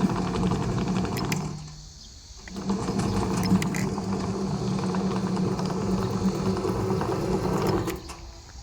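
Electric drive motors and tracks of a remote-control tracked robot chassis running with a steady, buzzing mechanical hum. It cuts out briefly just under two seconds in, starts again about a second later, and stops near the end.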